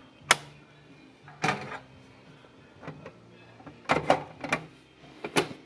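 Irregular sharp clicks and knocks, about seven in all, of a Dell OptiPlex 7010 desktop's case and parts being handled during a RAM swap, over a faint steady hum.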